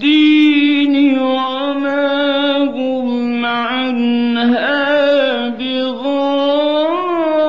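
A man's voice in melodic Quran recitation (tajweed), drawing out long sustained notes with slow pitch ornaments, pausing only briefly near three and six seconds in.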